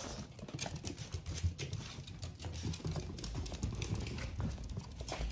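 Two small dogs play-wrestling on a hardwood floor, their claws clicking and skittering on the wood, with soft thuds throughout.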